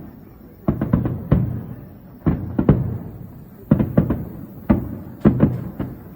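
Aerial fireworks shells bursting: about ten deep booms in small groups of two or three, each trailing off in a rumbling echo.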